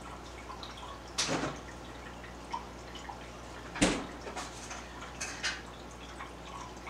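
Aquarium water trickling and dripping steadily, with a few louder, sudden splash-like noises about a second in and near four seconds in.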